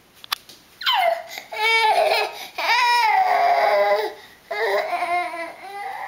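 A toddler crying in about four drawn-out wails with short breaks between them, starting about a second in; the first cry slides sharply down in pitch.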